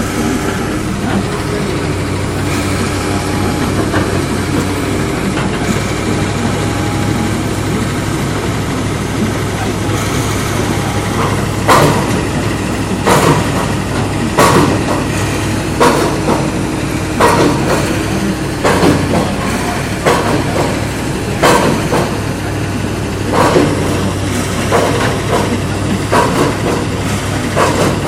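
Komatsu PC200-8 excavator's diesel engine running steadily. From about twelve seconds in, loud knocks come roughly every second and a half over the engine.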